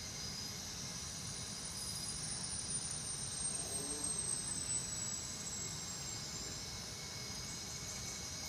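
Steady background room noise: an even hiss over a low hum, with a faint high whistle slowly falling in pitch over the first few seconds.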